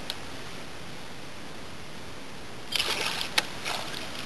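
A hooked tararira (trahira) thrashing at the water surface, with a cluster of splashes and one sharp click starting a little under three seconds in, over a steady background hiss.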